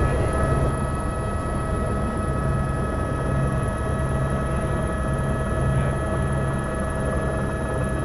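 Helicopter noise heard from inside the cabin: a steady low rotor drone with a constant high engine whine over it.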